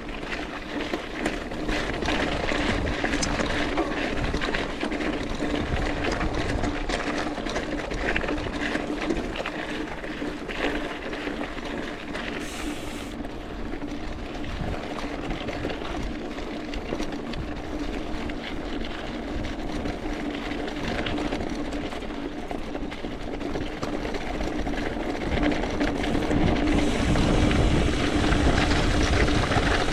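Mountain bike being ridden: continuous tyre and trail noise with many small rattles and clicks, over a steady low hum, growing a little louder near the end.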